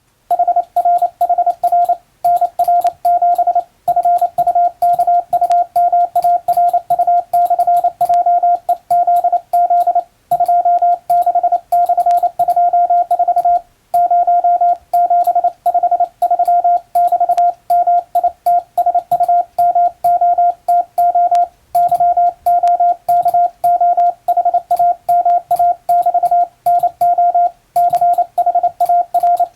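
International Morse code sent on a telegraph key: a steady beep of about 700 Hz keyed on and off in quick dots and dashes, with short pauses every couple of seconds between groups of the practice telegram text.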